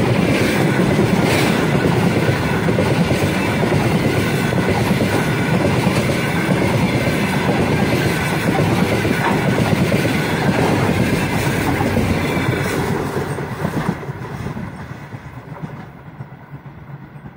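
Wheels of a long track-laying train's flatcars rolling past on the rails at close range. Near the end the last car goes by, and the sound fades as the train moves away.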